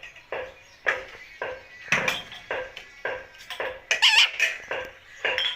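Green parrot making a run of short, clipped calls about twice a second, with a wavering chirp about four seconds in.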